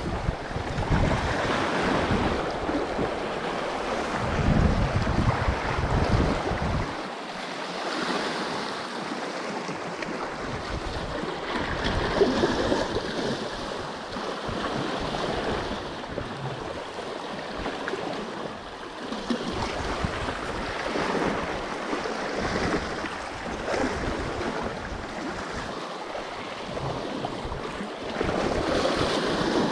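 Sea waves washing and surging against the shore rocks, swelling and falling back every few seconds, with wind buffeting the microphone in heavy low rumbles, strongest in the first several seconds.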